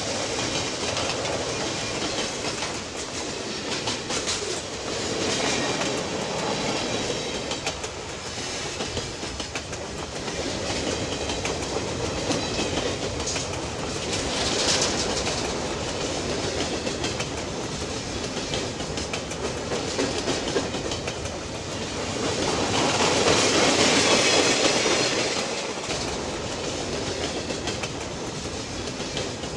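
Steam train running on the rails, wheels clattering over the track, with the noise rising and falling and a louder swell lasting a few seconds late on.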